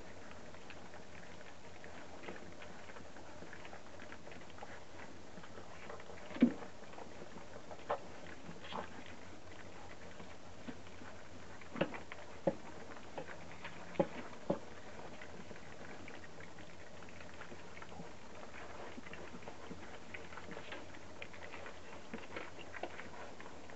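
A litter of puppies eating dry kibble together from one bowl: faint steady crunching, lapping and scrabbling, broken by a few sharp clicks and knocks. The loudest click comes about six seconds in, and a small cluster follows between about twelve and fifteen seconds.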